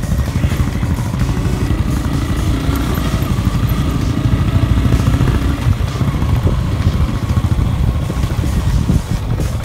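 Motorcycle engine running along a bumpy dirt track, with a heavy, steady low rumble.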